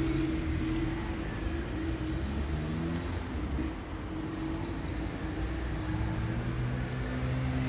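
Low steady rumble of a motor vehicle's engine, with its low hum shifting in pitch every second or so.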